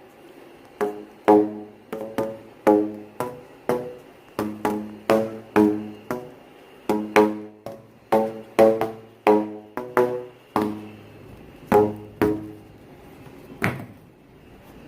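Music: a melody of sharply struck or plucked pitched notes, each dying away quickly, in an uneven rhythm.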